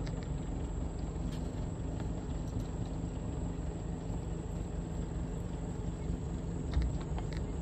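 Boat motor running steadily as a small fishing skiff cruises, a low even rumble. There is a brief knock near the end.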